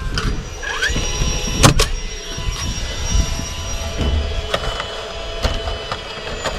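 DeWalt roofing nailer driving nails into vinyl soffit: two sharp shots in quick succession about a second and a half in, then a few fainter clicks and knocks.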